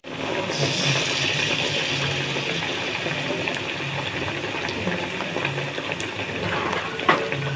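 Battered tempe slices frying in hot oil in a wok: a steady sizzle with scattered small pops, and one sharper pop or tap near the end.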